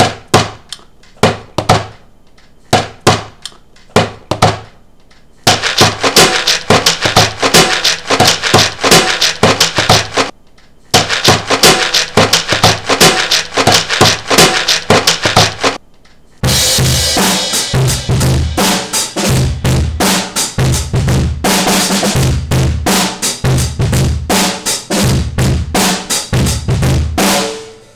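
Hand drumming on plastic-lidded peanut tubs, layered into a percussion piece. It starts as sparse taps, turns into a dense fast rhythm after about five seconds, and deeper thumps join from about the middle on.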